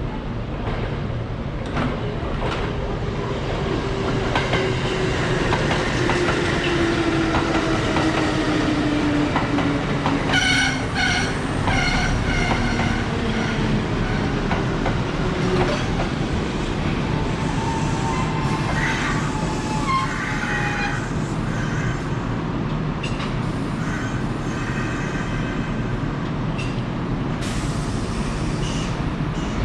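Kintetsu electric train running into the station and slowing, its motor whine falling steadily in pitch over a rumble of wheels on rail. About ten seconds in, a horn sounds in several short blasts.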